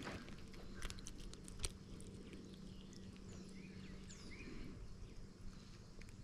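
Faint outdoor ambience: a few sharp clicks in the first couple of seconds, the loudest about a second and a half in, and a few faint high bird chirps near the middle.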